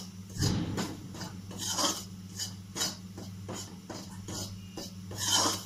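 A spoon scraping and stirring in a steel pan, roughly two uneven strokes a second, as plain flour is roasted in melted butter to start a white sauce.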